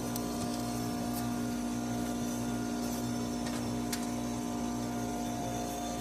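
Running central air-conditioning equipment giving a steady electrical-mechanical hum made of several fixed tones, with a low throb about twice a second. A few faint clicks sound about a second in and near four seconds.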